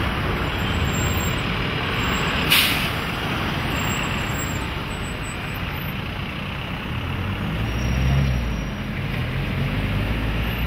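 Street traffic: engines of passing cars and a bus running, with a short, sharp air-brake hiss about two and a half seconds in. A deeper engine rumble swells around eight seconds in.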